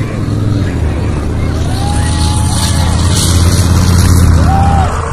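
Heavy military vehicle's engine running as a truck-mounted artillery gun drives over the dirt arena, growing louder toward about four seconds in and easing off near the end. A thin tone rises and falls twice.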